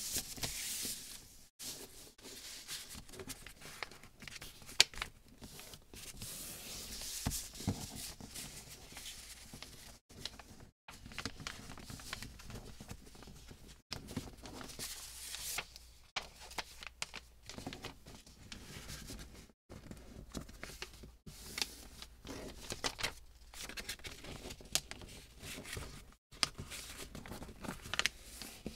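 A sheet of paper being folded into a paper airplane on a cardboard surface: uneven rustling and crinkling as the paper is handled, folded and pressed flat, with scattered sharp taps.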